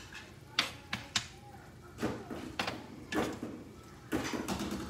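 Metal spoon stirring and basting chicken pieces in a simmering sauce in a nonstick skillet, with a couple of sharp clinks of the spoon against the pan. Brief pitched sounds come in between the clinks.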